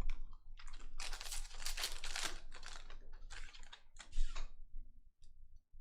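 Crinkling and tearing of a foil trading-card pack wrapper being ripped open, in dense bursts for about four seconds, then a few faint ticks.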